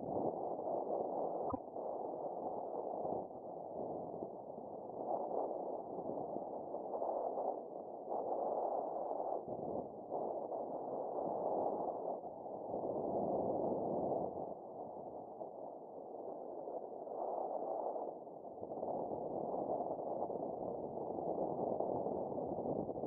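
Paragliding variometer sounding its tone in uneven spells, coming and going as it signals lift.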